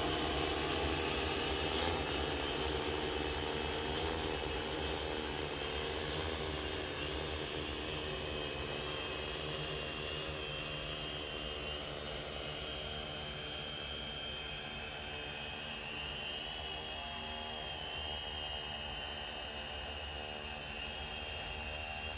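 Drone Duster Z-LION-10 agricultural multirotor drone's electric motors and propellers running with a steady, slightly wavering high whine as it flies spreading powder, fading gradually as it moves away.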